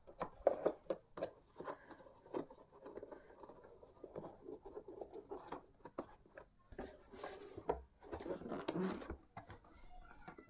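Cardboard packaging being handled: inserts and flaps are pushed and slid into place inside a laptop box, giving irregular scrapes, rustles and light knocks, with a busier stretch near the end.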